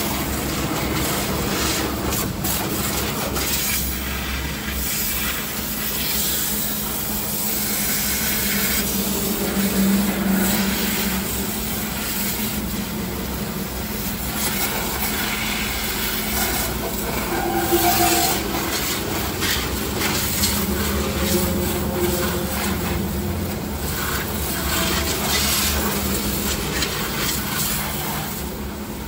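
High-pressure washer spraying water onto the underside of a raised car: a hiss that swells and fades as the jet moves, over a steady low hum.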